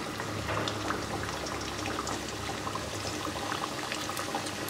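Thekua dough pieces, just dropped into hot oil, deep-frying: a steady bubbling sizzle with small crackles.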